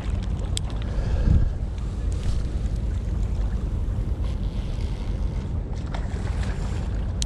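Wind buffeting the microphone in a steady low rumble, swelling louder about a second in, with a few faint clicks from a spinning reel being cast and wound.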